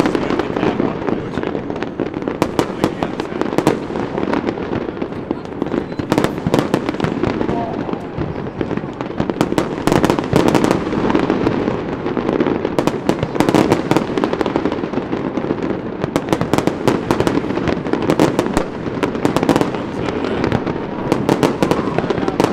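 Fireworks display going off in a continuous barrage: rapid, irregular bangs and crackles one after another over a steady haze of noise.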